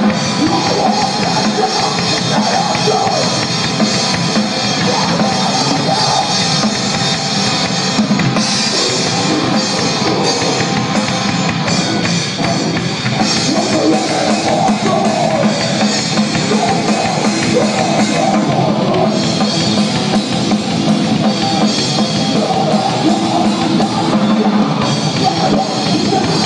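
Live rock band playing loudly, with the drum kit to the fore.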